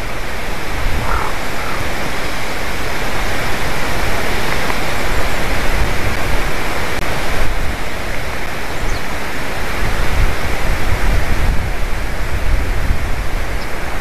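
Wind buffeting an outdoor microphone in a treetop: a steady, loud hiss with a deep rumble underneath.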